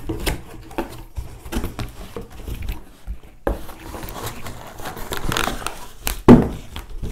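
Cardboard helmet box being opened by hand: flaps pulled apart with scraping, rustling and small knocks, then one loud thump about six seconds in.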